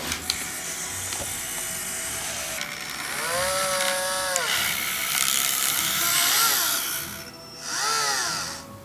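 1:32-scale RC Komatsu PC450 model excavator's small electric motors and gears whirring as it swings and digs with its arm and bucket. Three times a motor whine rises in pitch, holds, then drops away, the longest lasting about a second a few seconds in, with a sharp click at the start.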